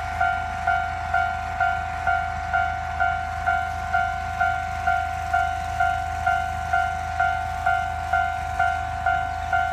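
Japanese level-crossing warning bell ringing its electronic clang at an even pace of about two strikes a second, over a steady low hum.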